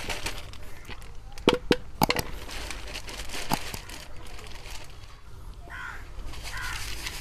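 Handling of a plastic bag of crushed fish-feed pellets and plastic bowls on a concrete bench: a few sharp clacks and taps, a cluster of them about one and a half to two seconds in and one more a little later.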